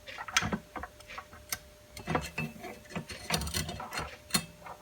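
Metal parts of a bench belt sander clicking and knocking as its belt table is fitted onto the frame by hand: a run of irregular light knocks and clicks.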